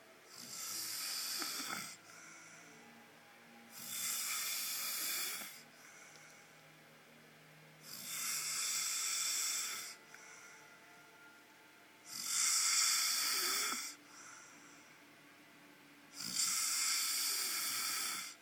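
A man snoring in his sleep: five long, loud snores at about one every four seconds, each followed by a short, softer breath out.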